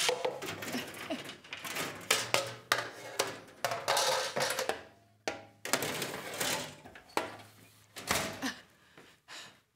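Off-camera clatter of cabinet doors and metal pans being shifted as a sheet pan is fetched: a string of sharp knocks and clanks mixed with scraping and rustling.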